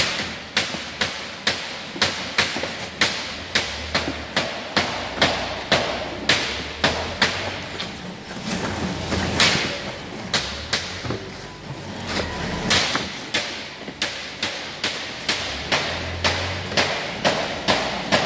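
Repeated sharp knocks, about two a second, from hand work on broccolini at steel packing tables.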